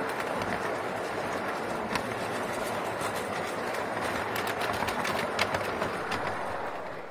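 A 5-inch gauge miniature train running along its track, heard from the riding car: a steady rumble of small steel wheels on the rails, with sharp clicks now and then as the wheels pass over rail joints. The sound fades away at the very end.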